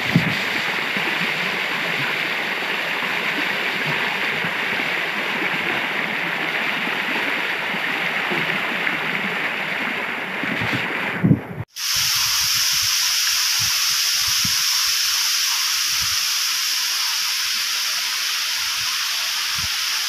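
Rushing waterfall water splashing on and around the camera, a loud steady noise with a few low thumps. About twelve seconds in it cuts abruptly to a thinner, higher steady hiss.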